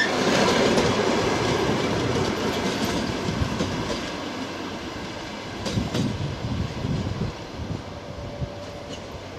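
A train running on the rails, its wheels clattering over the rail joints, the noise slowly fading away.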